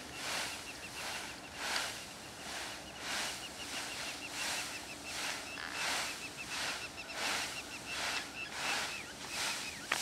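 Dry wheat stalks rustling in repeated swishes about once a second as someone pushes through the standing crop, under a long run of quick, short, high chirps from a bird.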